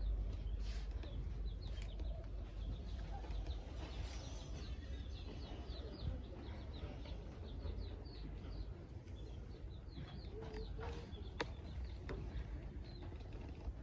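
Small birds chirping in quick, repeated short notes over a steady low rumble, with a single sharp click late on.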